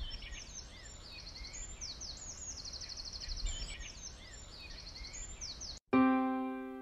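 Songbirds singing, with short chirps, sweeping notes and fast trills, over a low steady background rumble. Near the end the birdsong cuts off abruptly and a piano chord begins.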